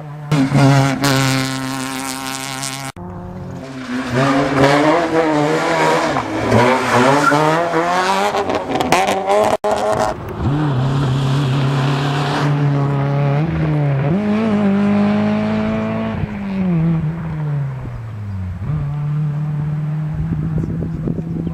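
Rally car engines at full throttle, climbing in pitch through the gears and dropping off as the cars lift and brake. The sound breaks off abruptly about three seconds in and again near ten seconds, as the footage changes from one car to the next.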